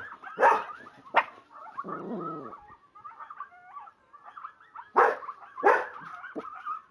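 Dogs barking: four sharp barks in two close pairs, about a second in and again about five seconds in. Under the barks runs a continual high, wavering whine. The dogs are reacting to a recording of howling wolves played from a laptop.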